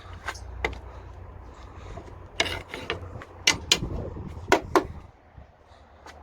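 A series of sharp clicks and knocks, about eight of them, over a low rumble that fades out about five seconds in.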